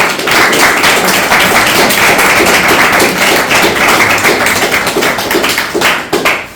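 Audience applauding, a dense patter of many hands clapping that starts abruptly and dies away near the end.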